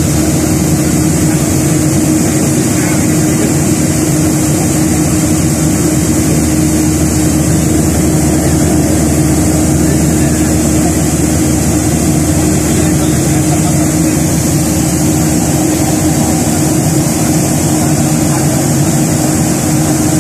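Airliner cabin noise in cruise: the jet engines and rushing air make a loud, steady drone with a constant low hum.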